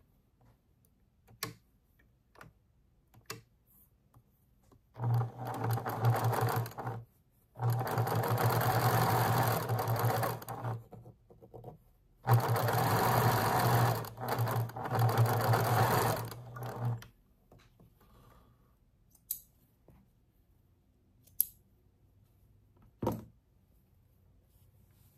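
Domestic electric sewing machine stitching patchwork fabric, running in three spells of a few seconds each with short stops between. A few light clicks come before and after the stitching.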